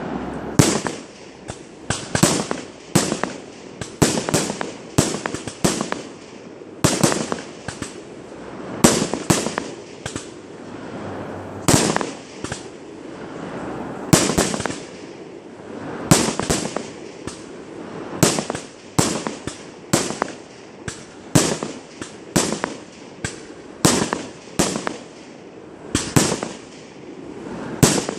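Aerial firework shells bursting in a long rapid series of sharp bangs, a little more than one a second, each trailing off in a short echo.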